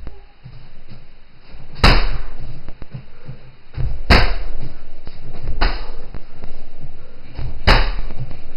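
Strikes landing on a hanging heavy punching bag: four hard thuds about two seconds apart.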